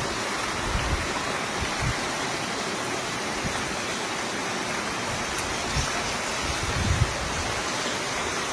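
Heavy rain pouring steadily, a dense even hiss, with a few short low thumps.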